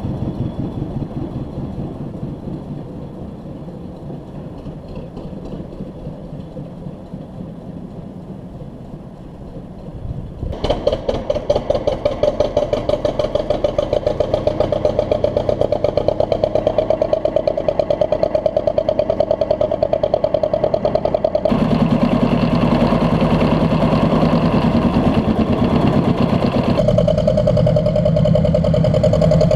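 21-inch gauge miniature locomotive of LMS Princess Royal class 6203 'Princess Margaret Rose' running along the track, its drive giving a rapid, even beat. The sound fades a little at first, then becomes much louder and closer about ten seconds in, and its tone shifts twice more later on.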